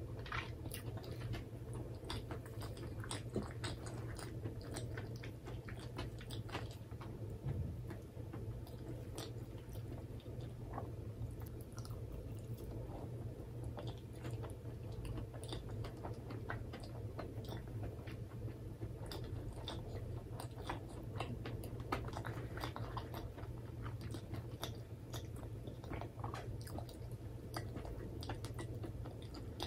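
Close-miked chewing of food with the mouth closed: a steady run of small wet mouth clicks and soft crunches, over a faint low hum.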